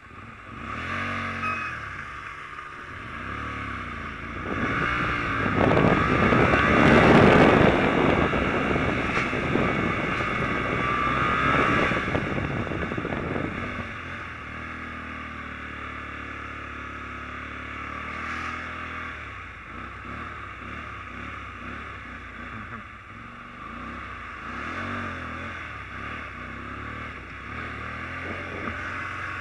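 Small 125cc motorbike engine revving hard and running under load, loudest from about five to thirteen seconds in, then settling to steadier, quieter running with some blips of throttle.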